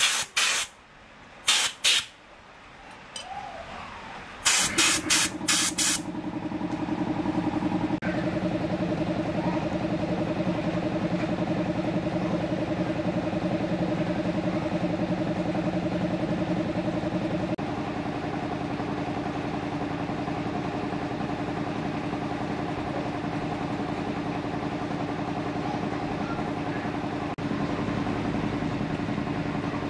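An engine running steadily with an even hum, starting about four seconds in after a few short sharp clicks.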